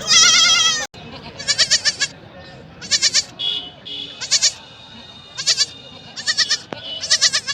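Baby goats (kids) bleating: a loud, long, wavering bleat that breaks off suddenly about a second in, then a run of shorter, quavering high-pitched bleats roughly every second, with fainter bleats between.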